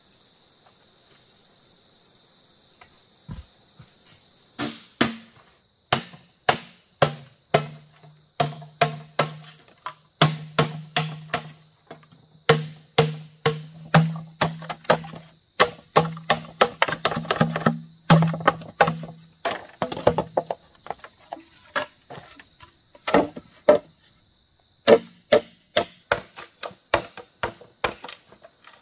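Bamboo being chopped: sharp blows at an uneven pace of about one or two a second, many with a hollow ringing tone. The blows start about five seconds in and stop briefly a little after twenty seconds. Insects drone steadily behind.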